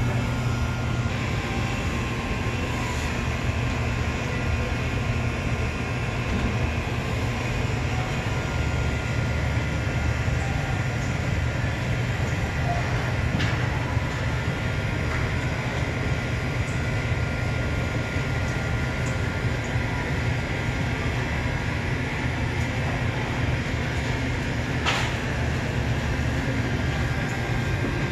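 Steady low hum of supermarket cooling and ventilation equipment, with a faint high steady tone over it and a couple of light clicks.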